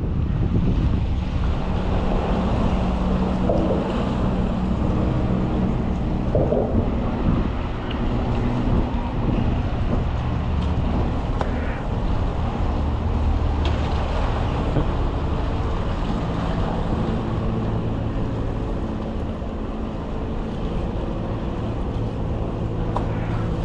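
Wind on the microphone over the steady, even drone of an engine, with several low tones held throughout.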